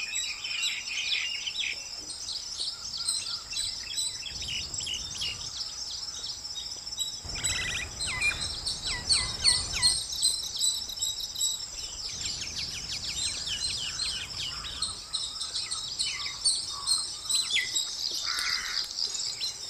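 Common mynas calling: a busy run of quick chirps and whistled notes, over a steady high ringing in the background.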